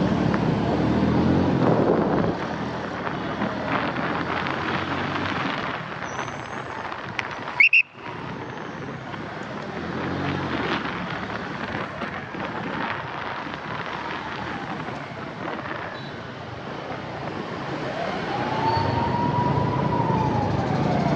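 Ambulance siren wailing, slowly rising and falling over steady road traffic noise, with the clearest rise and fall near the end. About seven and a half seconds in, a short sharp high-pitched sound is the loudest moment, followed by a brief dropout.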